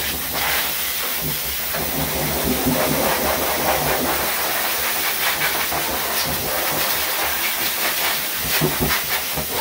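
High-powered dog grooming blow dryer blasting air through its hose onto a wet dog's coat: a steady rushing hiss over a low motor hum.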